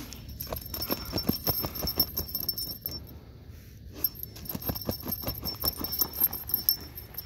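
A husky digging hard in gravelly desert soil with its front paws: rapid scratching and scraping of dirt and pebbles, with a light metallic jingle running along with it. The digging stops for about a second near the middle, then starts again.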